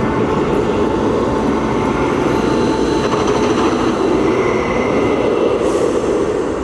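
Steel roller coaster train on a test run, a steady rumble along the track that swells a little through the middle and eases near the end.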